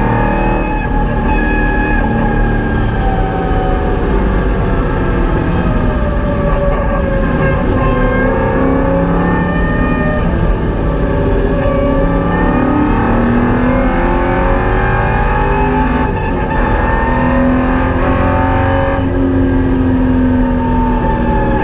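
Holden VY Commodore's LS1 5.7-litre V8 heard from inside the cabin under hard track driving, loud throughout, its note repeatedly climbing and falling as the revs rise and drop.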